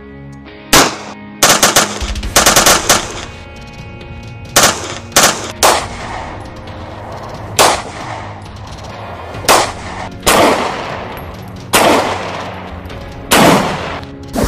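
Semi-automatic pistol firing: a fast string of shots about a second in, then single shots every second or two, each with a ringing echo. Background music plays under the shots.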